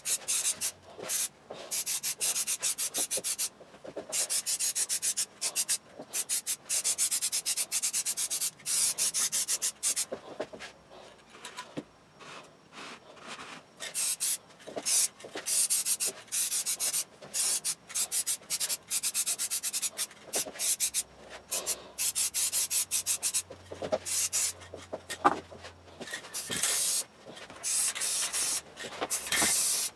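Aerosol spray can hissing in repeated bursts of a second or more, cut by short gaps, as finish is sprayed onto bare wood.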